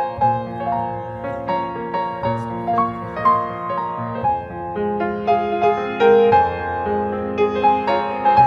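Piano introduction to a hymn: a slow, gentle melody of held notes over chords, without singing.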